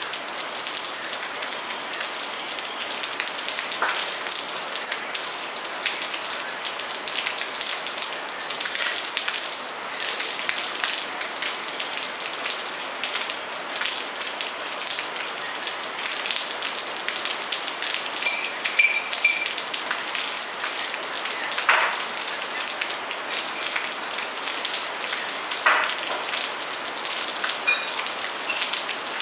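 Steady rain falling on a garden and a wet terrace: an even hiss made up of many separate drop hits, with a few louder single drips standing out.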